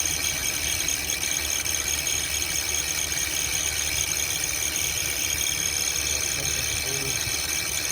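Honda engine idling with the AC running, with a fast, steady, high-pitched chipping noise from around the serpentine belt tensioner. The noise comes only while the AC fan runs.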